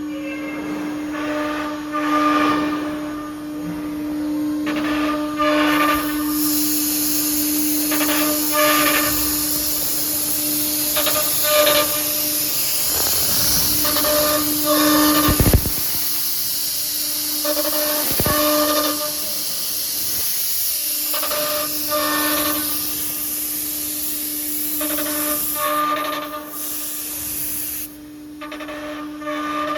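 CNC nesting router running, its spindle giving a steady whine with a loud high hiss over it for most of the stretch. Two sharp knocks come in the middle, the second about three seconds after the first.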